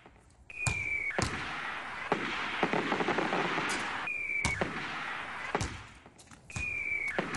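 Fireworks sound effect: a short, slightly falling whistle, then sharp bangs and a fading crackle. It repeats three times, about a second in, about four seconds in, and near the end.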